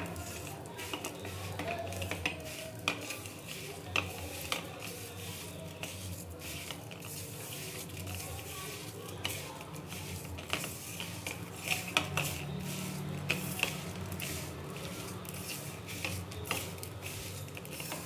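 A hand mixing a coarse ground spice masala, with a little oil, around a steel plate: a steady gritty rustle with frequent light scrapes and clicks of fingers and grains against the metal.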